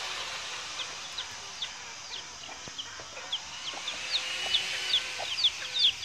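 Chicken sounds: a chick peeping in short, high, falling chirps that come quicker and louder toward the end, with a hen clucking low under them.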